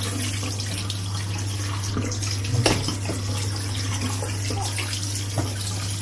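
Hot water tap running onto cooked rice in a stainless steel mesh sieve in the sink, rinsing it, over a steady low hum. A few light knocks come through, the loudest about halfway through.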